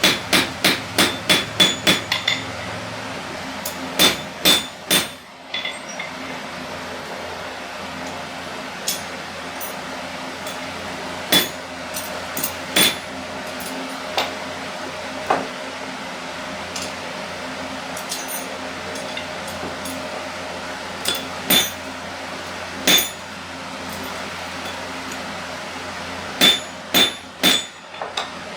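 Blacksmith's hammer striking hot iron on an anvil while bending a drive-in hook, each blow ringing. There is a quick run of about eight blows at the start, then scattered single and paired strikes with long gaps, and a cluster of four near the end.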